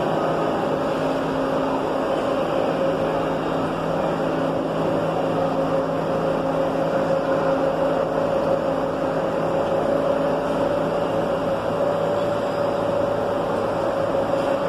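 NS74 metro train standing at the platform, its onboard equipment giving a steady hum of several fixed tones over a constant hiss.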